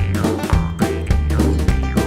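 Upbeat instrumental background music with a steady beat, a bouncing bass line and a gliding melody.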